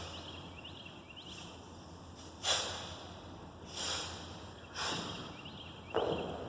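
A man's sharp, forceful exhalations in time with double kettlebell snatch reps: four short hissing breaths about a second apart, starting a couple of seconds in.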